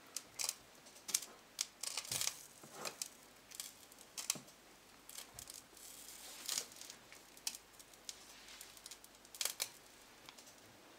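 Light, irregular clicks and taps as raw sausages are set down one by one in a dry, preheated nonstick frying pan.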